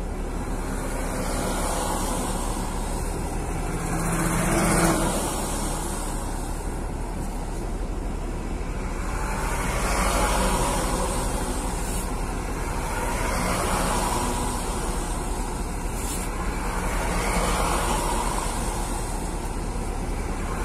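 Column of Russian army six-wheel-drive trucks driving past one after another on a wet road: steady engine rumble and tyre hiss on wet asphalt, swelling as each truck goes by and fading, every few seconds.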